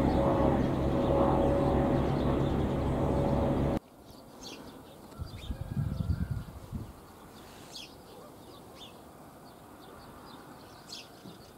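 A steady engine drone cuts off abruptly about four seconds in. Then small birds chirp now and then over a quiet background, with a brief low rumble a couple of seconds after the cut.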